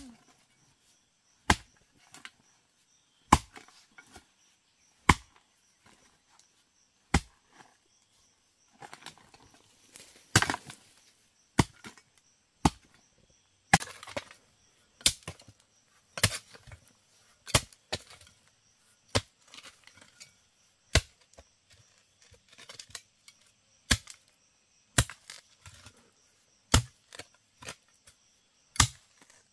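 Repeated chopping strikes of a hand tool, sharp single blows about one every one to two seconds with a short pause near the end, and light scraping between them.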